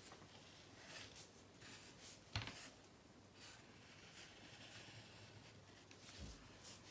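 Faint scratching of black felt-tip markers drawing strokes on paper, the strokes coming and going. A sharp click about a third of the way in, and a soft low thump near the end.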